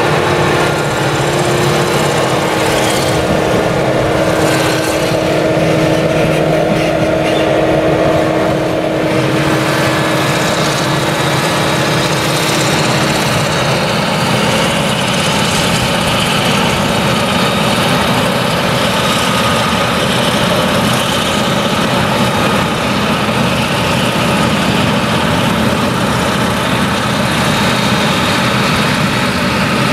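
Claas Jaguar 970 forage harvester's MAN V8 engine running steadily under load while chopping maize, with a tractor running alongside. A steady whine stops about 13 seconds in.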